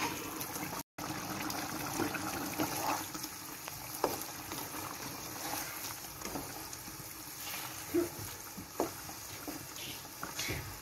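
Wooden spatula stirring chicken pieces through hot, simmering gravy in a metal kadhai: wet sloshing and squelching, with a few light knocks of the spatula against the pan.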